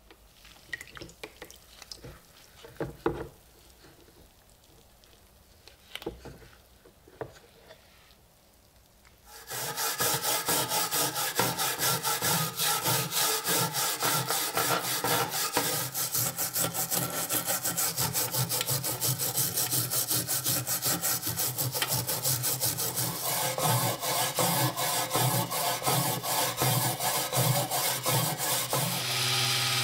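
A few faint knocks and clicks, then from about ten seconds in, rapid steady back-and-forth scraping: a small hand-held scrubber working over the rust-coated steel blade of a bayonet lying in a stainless steel tray, scrubbing off rust loosened in a chemical bath.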